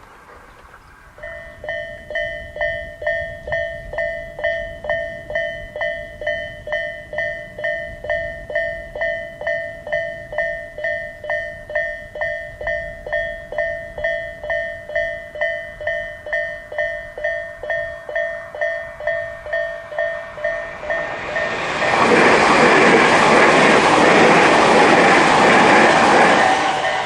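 Tobu Isesaki Line level-crossing alarm, the distinctive Tobu "Isesaki-type" electronic tone, starts about a second in and rings about twice a second, warning that a train is coming. About 21 s in a train passes through the crossing and its rumble and wheel clatter cover the alarm for about five seconds; then the alarm rings on.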